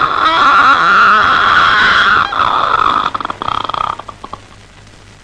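A man imitating a door creaking open with his voice: one long, high, wavering creak that breaks into a rapid stutter about three seconds in and stops about a second later.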